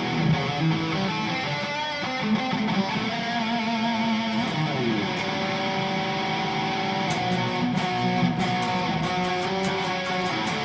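Harley Benton SC-500 electric guitar played through the Overloud TH3 amp simulator, held notes ringing out, with a vibrato note about three seconds in and a sliding note near five seconds. From about seven seconds in, a run of sharp ticks joins it.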